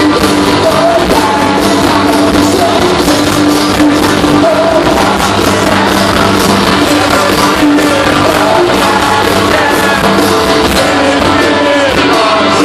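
Live rock band playing, a lead vocal singing over drums and guitars, heard loud from among the audience.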